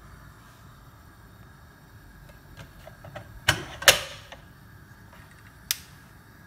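Tatch Swisstech stainless steel pressure cooker lid being closed and locked. A few light clicks come first, then two sharp metallic clacks about half a second apart about three and a half seconds in, and one more click near the end.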